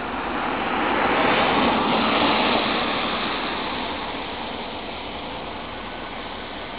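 A road vehicle passing close by: tyre and engine noise swells over the first second, is loudest at about two seconds, and fades away by about four seconds.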